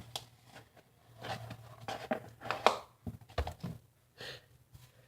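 Hands working a homemade flour-and-salt dough: irregular soft squishing, rustling and small clicks, with a dull knock about two-thirds of the way through.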